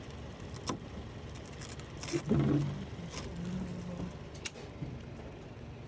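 Plastic wrap crinkling as it is pulled off the necks of 5-gallon water bottles, a few sharp crackles over a low steady background noise, with a brief muffled low sound about two seconds in.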